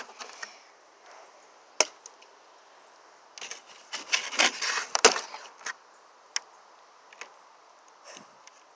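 An egg stuck in a plastic egg carton being pried and squeezed by fingers until its shell breaks: scattered sharp clicks, with a dense run of crackling from about three and a half to five seconds in as the shell cracks.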